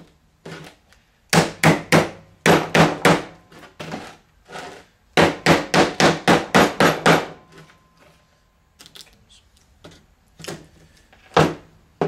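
Hand hammer striking the steel core of a microwave oven transformer on a wooden workbench, knocking the transformer apart. The blows come in quick runs of several strikes each, with a short pause after about four seconds, then a few lighter, scattered knocks near the end.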